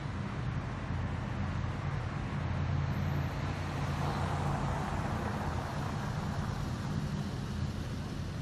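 City street traffic: the steady low hum of car engines under a constant wash of tyre noise, with one vehicle passing by about four seconds in, its sound swelling and then fading.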